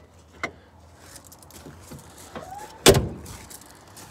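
A door slamming shut once, with a heavy thud, about three seconds in. It is preceded by a few light clicks and a short squeak.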